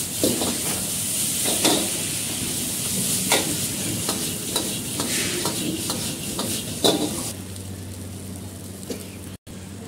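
Egg chilli sizzling in a hot wok as it is tossed and stirred, with sharp metal knocks of the ladle against the wok every second or two. About seven seconds in the sizzle and knocking die down, leaving a low steady hum.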